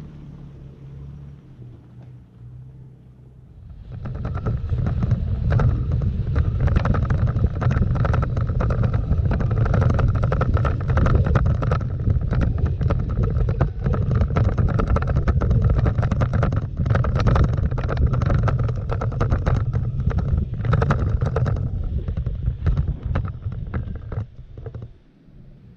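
A Toyota Tacoma pickup driving away up a dirt road, its engine hum fading. Then, about four seconds in, a loud, dense rumble of the same truck driving on the dirt road, heard from a camera on its hood: engine, tyre and road noise with many small knocks and rattles, and wind on the microphone, which drops off sharply near the end.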